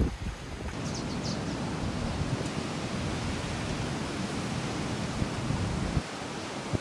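Steady rushing of ocean surf breaking on a rocky shore, with wind on the microphone. It comes in just under a second in, after a short stretch of gusty wind rumble.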